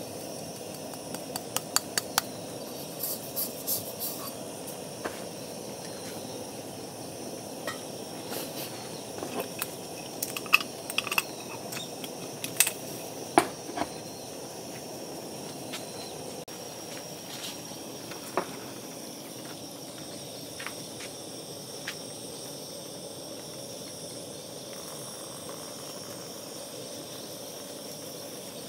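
Sharp taps and light metal clinks as ground coffee is knocked out of a hand coffee grinder into a stainless-steel phin filter and the filter's press is set on the grounds, most of them in the first half. A steady hiss of background noise runs underneath.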